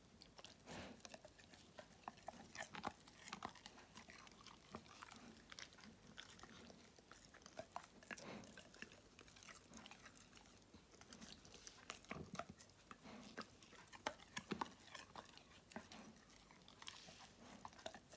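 German Shepherd dog chewing pieces of Wiener sausage fed from a hand: an irregular run of short, close chewing clicks.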